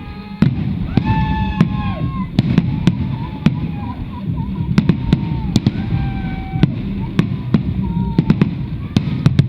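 Fireworks bursting overhead: a rapid, irregular string of about twenty sharp bangs.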